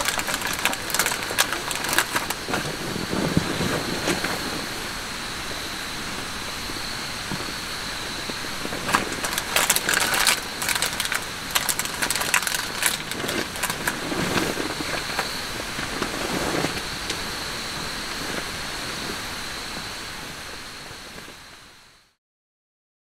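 Night-time outdoor ambience: a steady high trill of insects over a soft background hiss, with scattered crackles and clicks. It fades out near the end.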